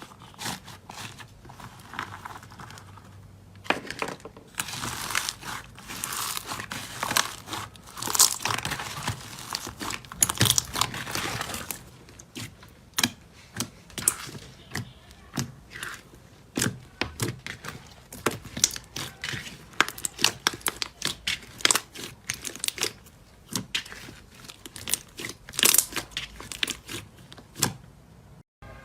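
Slime being pressed and stretched by hand, giving crackling, crinkling and popping, with many sharp clicks. The crackling is densest in a stretch from about four to twelve seconds in, then thins out to separate pops.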